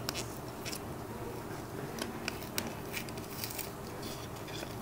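Glued flap of a paper trading-card pack envelope being peeled open by hand, with faint rustling and scattered small clicks and ticks as the paper comes loose.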